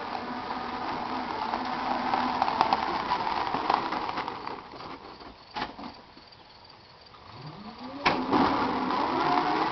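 Electric drive motor of a 3500HD truck converted to battery power, whining steadily as the truck drives. About halfway through the whine fades almost away, then rises in pitch again as the truck picks up speed, with two sharp clicks: one in the quiet stretch and a louder one as the whine comes back.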